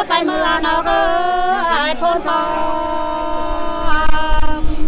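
Two Nùng women singing sli, a folk song sung without accompaniment. They sing ornamented, bending phrases, then hold one long note for about two seconds. A low rumble comes in near the end.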